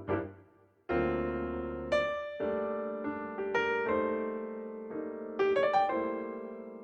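Background piano music: struck notes and chords, each dying away.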